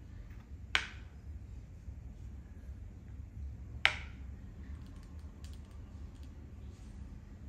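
Two sharp clicks about three seconds apart: a plastic makruk (Thai chess) piece knocking on the board as a red pawn is lifted and set down one square forward. A few fainter ticks follow.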